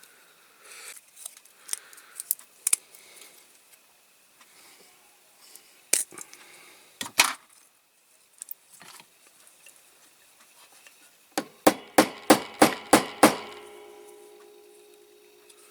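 Small metal hand tools clicking and scraping against a diecast model car while a glued-in wheel axle is worked on. Near the end comes a quick run of about seven sharp metal taps, about four a second, that leave a brief ringing.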